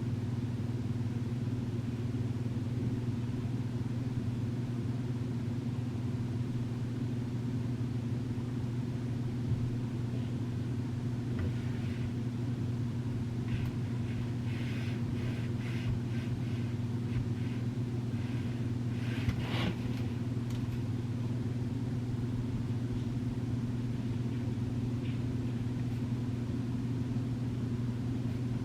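A steady low mechanical hum, with faint light rustles and taps for a while in the middle.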